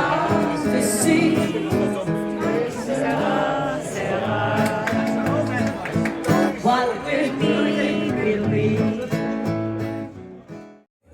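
Live music: a singer with acoustic guitar accompaniment, fading out near the end.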